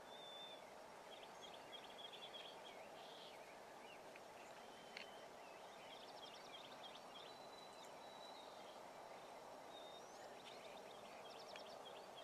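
Faint, quiet field ambience: small songbirds chirping and trilling on and off over a steady low background noise, with one sharp tick about five seconds in.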